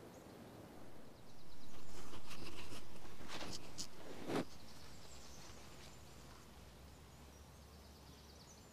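Outdoor ambience with faint bird chirps. A broad rush of noise swells about a second in and fades away over the next few seconds, with a few short knocks in the middle of it.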